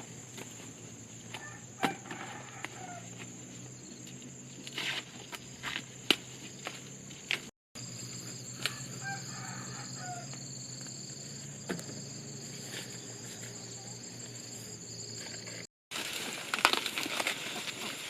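Rural farmyard ambience: a steady high insect drone, with chickens calling now and then and scattered knocks and rustles of handwork. The sound drops out completely twice, briefly.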